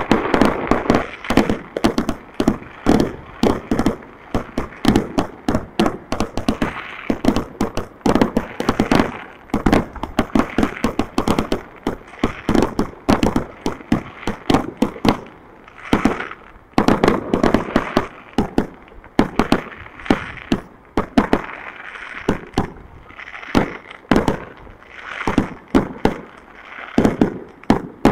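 Fireworks going off in quick succession: a dense string of sharp bangs and crackling pops, several a second, coming in louder, thicker clusters, one of the heaviest a little past the middle.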